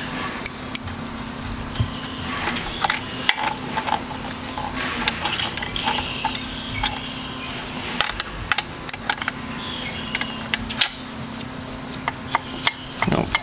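Scattered sharp metal clinks and clicks of a 9/16 open-end wrench working the nut on a Turbo 400 transmission's selector shaft, over a steady low hum.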